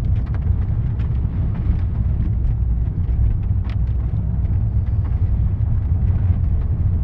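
Steady low rumble of a car's engine and tyres heard from inside the cabin while driving, with occasional light ticks and knocks from the road surface.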